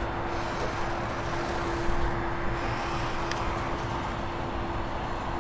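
Motor of a yacht's powered engine-room hatch running as the big deck hatch lifts open: a steady hum with one held tone over a wash of outdoor noise.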